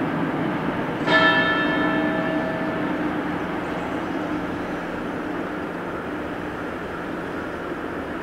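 A church bell struck once about a second in, ringing out and fading over a couple of seconds, over a steady low rumble.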